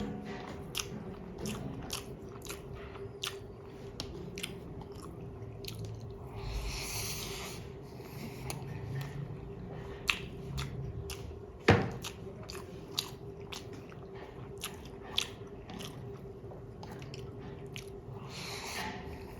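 Close-up eating of chicken biryani: chewing and biting with many short wet mouth clicks, one sharper click about halfway through, over a faint steady hum.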